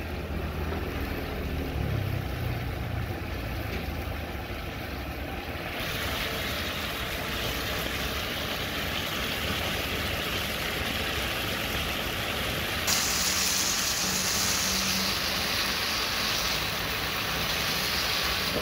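Chicken and ginger stir-fry sauce simmering and sizzling in a wok: a steady hiss that steps up louder and brighter about six seconds in and again about halfway through.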